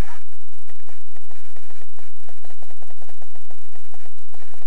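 Ultra-micro RC P-51 Mustang's 8-gram brushless outrunner motor running with its propeller spinning, loud and distorted, with a rapid ragged clicking through it.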